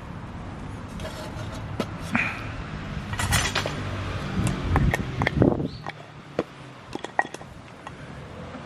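Light clinks and knocks of metal cookware and utensils being handled, a scattering of short strikes over a steady low background.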